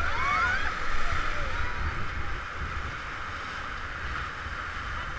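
Whitewater rushing and splashing around an inflatable raft running a rapid, with a low rumble of wind on the microphone; the water is loudest about a second in. A few short high whoops from the rafters come in the first two seconds.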